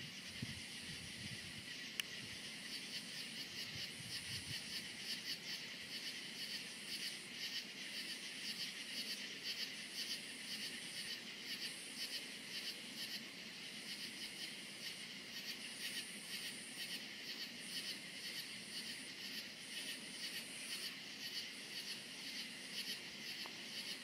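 Crickets chirping in a dense, steady, fast-pulsing chorus, with a higher insect call above it that switches on and off every second or two. A faint low rumble sits under them during the first few seconds.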